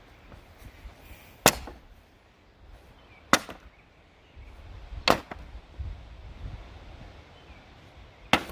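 Sledgehammer striking a wooden pallet four times, single hard blows about two seconds apart, knocking the boards and blocks loose.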